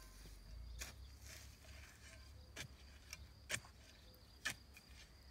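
Long-handled garden tools chopping into loose soil while a raised bed is dug over: several sharp strikes about a second apart, the loudest a little past the middle. A faint steady high insect trill runs underneath.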